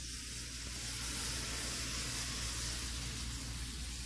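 Tomix N-scale bullet-train model running on its track: a steady hiss of wheel noise, rather loud and swelling a little about a second in, with no buzzing or humming from the motor.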